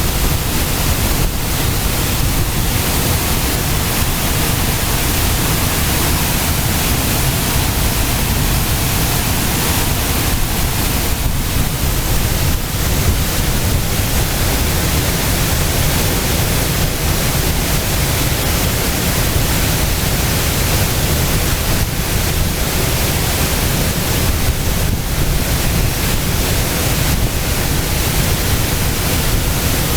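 Waterfall: a steady, loud rush of falling water, even throughout.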